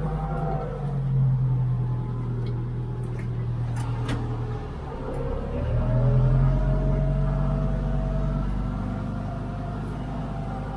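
International 1455 tractor's diesel engine running while plowing snow, its note rising about a second in, dipping briefly about five seconds in, then rising again as the load and throttle change.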